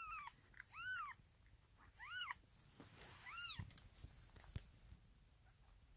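Newborn kitten mewing: four short, high cries, each rising then falling in pitch, about a second apart, with a few faint clicks after the last one.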